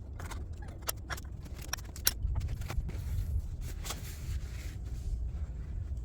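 Scattered sharp clicks and light knocks of a CV axle being handled and turned around in a bench vise, most of them in the first four seconds, over a steady low rumble.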